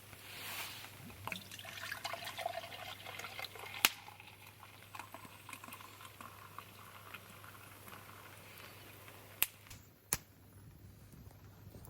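Liquid being poured into a container, faint, followed by a few sharp clicks or knocks: one about four seconds in and two close together near the end.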